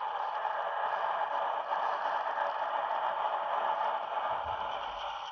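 Model CSX Tier 4 GEVO diesel locomotive running, its onboard sound system playing a steady diesel engine sound through a small speaker.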